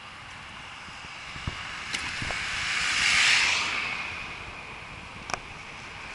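A car passes on the road, its tyre and engine noise swelling to a peak about three seconds in and then fading away. Underneath is the steady rush of a bicycle riding along the road, with a few light clicks and knocks from the bike.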